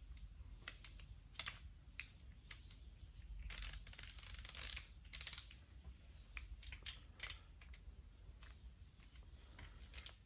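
Hand ratchet wrench clicking faintly in short runs, with one longer stretch of rapid ratcheting about three and a half seconds in, as cylinder-head bolts are run down in their tightening sequence.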